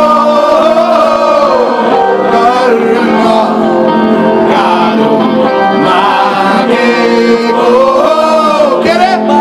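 Music: a male voice singing a melody over a guitar-based band.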